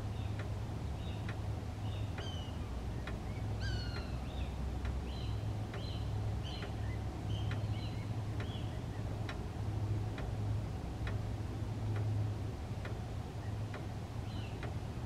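Cooper's hawks calling: short, harsh notes that fall in pitch, coming in a run over the first half and once more near the end. Under them a sharp tick repeats about once a second, over a steady low hum.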